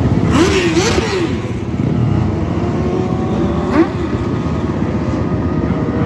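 Several small dirt-track race cars running past close by, engines revving; a burst of engine pitch rises and falls as the nearest cars go by about half a second in, with another brief rise near four seconds, over the steady drone of the pack.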